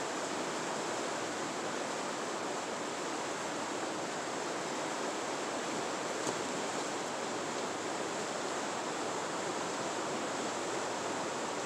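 The French Broad River rushing steadily over rocky riffles, an even wash of moving water. A single light click sounds about six seconds in.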